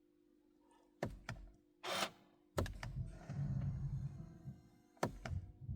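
Scattered sharp clicks and knocks with a brief rustle, then a low, uneven rumbling handling noise, with no fuel pump running.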